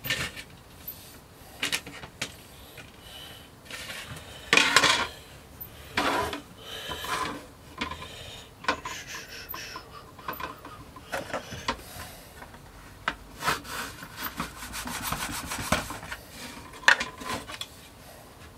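An 18 mm plastic boilie rolling table being worked: scattered scrapes and knocks, then a run of quick back-and-forth rubbing strokes late on as the grooved top is slid over the base to roll a sausage of paste into round baits.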